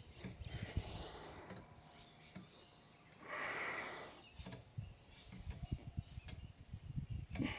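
A person exhaling hard once about three seconds in, amid low knocks and rustles of body movement.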